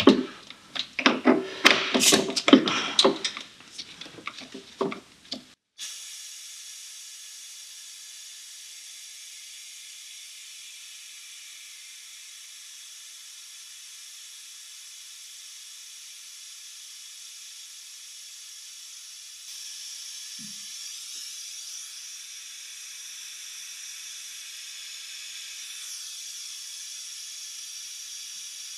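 Pneumatic vacuum bleeder pump (Busching "Chameleon") hissing steadily as it draws old clutch fluid out through the bleed hose. The hiss starts abruptly about five seconds in, after some louder irregular handling sounds, and grows slightly louder twice later on.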